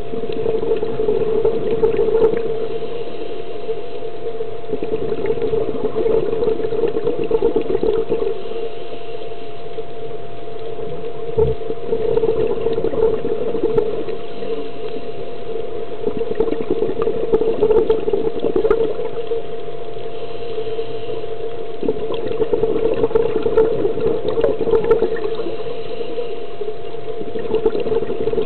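Underwater sound of a scuba diver breathing through a regulator: exhaled bubbles gurgle and crackle in surges every five or six seconds, over a steady underwater hum.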